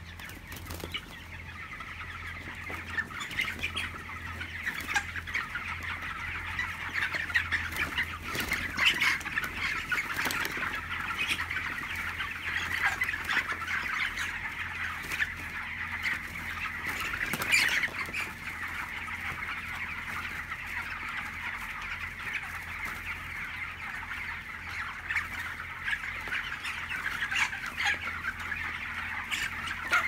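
A large flock of broiler chickens clucking and cheeping together in a dense, continuous chatter, with a few louder calls standing out now and then.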